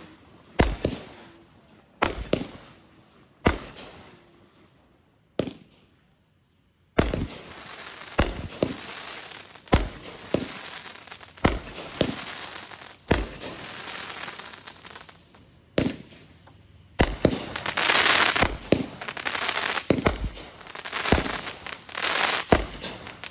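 Consumer fireworks going off: a few separate sharp booms in the first five seconds, then, after a brief silent gap about six seconds in, continuous crackling with repeated booms that is loudest and densest near the end.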